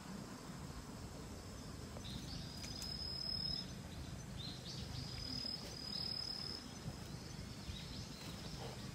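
Quiet outdoor ambience: a steady low rumble with faint high-pitched chirps that come and go.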